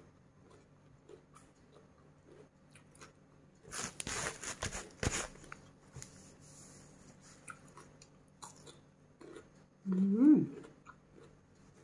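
Close-miked chewing and a loud crisp crunch of biting into fresh cucumber about four seconds in. Soft chewing follows, then a short rising hum near the end.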